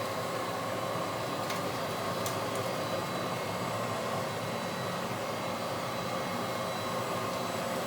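Stand-on commercial vacuum cleaner running steadily, its motor giving a constant whirring hum with a steady whine, and a couple of faint clicks near the start.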